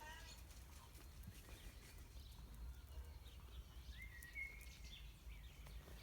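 Faint outdoor ambience: a low steady rumble with a few short bird chirps, the clearest about four seconds in.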